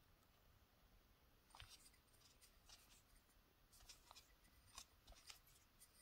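Near silence with faint handling noise: scattered light clicks and short scrapes from a ceramic candle jar being turned in the hand, starting about a second and a half in.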